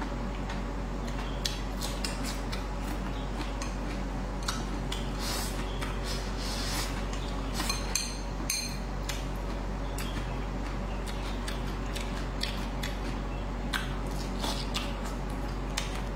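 Chopsticks clicking and scraping against a bowl and plate while someone eats, with scattered short clicks and chewing sounds.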